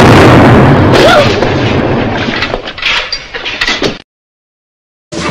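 Film sound-effect explosion of a gas-filled birthday cake: a loud blast with a low rumble that dies away over a few seconds, with scattered crackles and clatter of debris. It cuts off abruptly about four seconds in.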